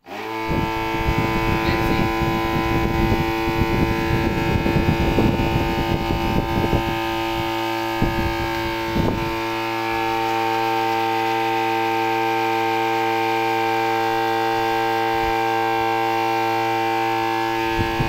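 RS-775 12-volt DC motor spinning a plastic fan propeller at full speed, a loud steady hum of several pitches. Through roughly the first half, paper held in its airflow flaps and rattles, and after that the hum runs on alone.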